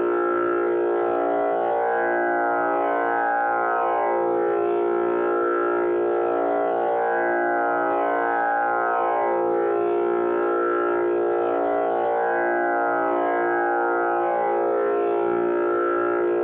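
Tanpura drone on an A# tonic: a steady, unbroken chord of many ringing overtones that shimmer and swell gently as the strings are plucked in turn.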